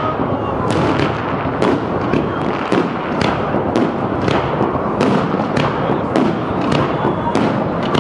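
Aerial firework shells bursting in a steady barrage, about two bangs a second, over a background din of voices.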